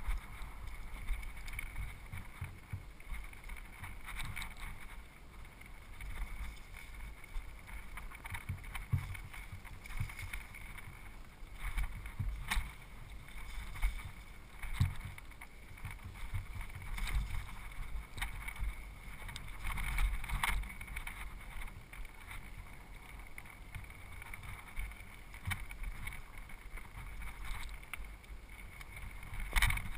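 Mountain bike riding fast down a dirt and rocky singletrack, heard through an action camera's housing: a steady low rumble of tyres and wind on the microphone, with frequent knocks and rattles as the bike hits roots and stones.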